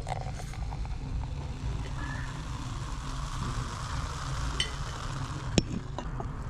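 A dark fizzy soft drink poured from a plastic bottle into a glass, the carbonation hissing and fizzing as foam builds, over a steady low rumble. A single sharp click comes near the end.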